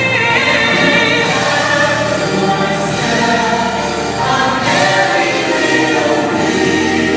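Choir singing with instrumental backing, sustained chords in a Christmas film melody.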